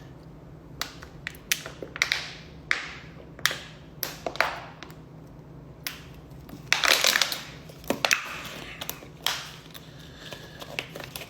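Irregular sharp clicks and taps with a few short rustling, crunching bursts, the longest about seven seconds in: handling noises over a steady low hum.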